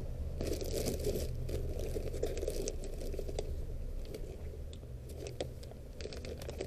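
Rummaging by hand through a box of small cabinet-lock parts: crinkling and rustling with many light, irregular clicks of small parts knocking together.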